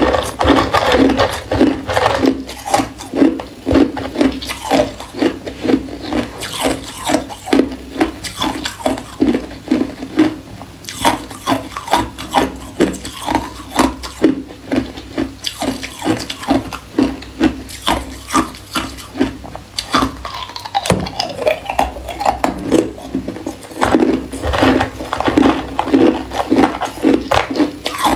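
Ice cubes crunched between the teeth, in a steady chewing rhythm of about two to three crunches a second, with a short let-up about two-thirds of the way through.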